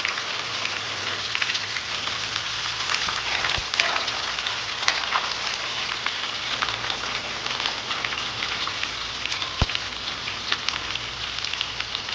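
Food frying: a steady sizzle with many small crackles, and a couple of brief knocks.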